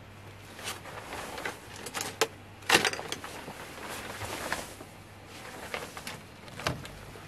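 Someone rummaging through shelves of electronic parts and cables: scattered clicks, knocks and rustles of objects being moved, the loudest knock nearly three seconds in, over a faint low hum.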